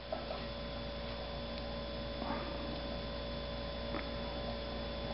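A steady electrical hum made of several fixed tones, with a few faint ticks about a second, two seconds and four seconds in.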